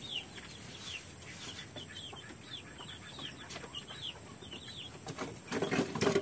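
Chickens peeping: a steady run of short, high, falling peeps, a few a second, with a louder, lower sound joining near the end.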